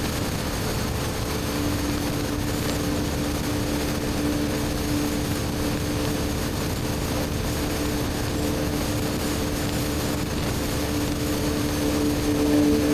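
BMW R1250GS Adventure's boxer-twin engine with an Akrapovic slip-on exhaust, running at steady revs while the motorcycle is ridden. A steady low hum from the engine sits under a constant rush of wind and road noise.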